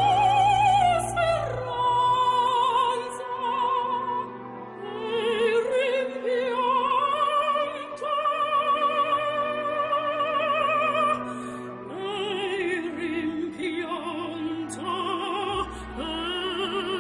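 Operatic singing with a wide vibrato over held accompaniment: background music.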